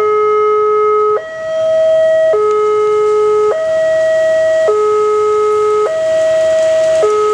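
Railway level-crossing alarm sounding its two-tone warning, a low note and a higher note alternating about every 1.2 seconds. The noise of an approaching commuter train rises beneath it near the end.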